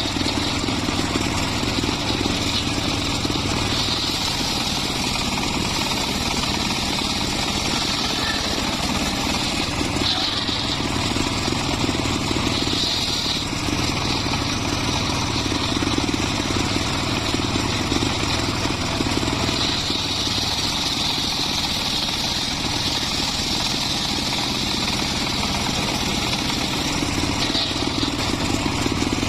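Circular saw cutting teak and mahogany timber, running steadily under load over a low drone. Its high whine swells and eases every few seconds as the blade works through the wood.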